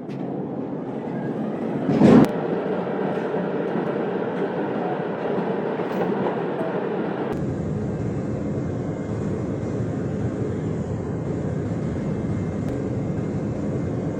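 Loud, steady mechanical engine noise, with a short, much louder burst about two seconds in and an abrupt change in tone about seven seconds in.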